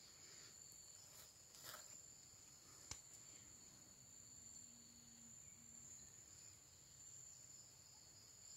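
Faint, steady, high-pitched chorus of insects such as crickets, with a single sharp click about three seconds in.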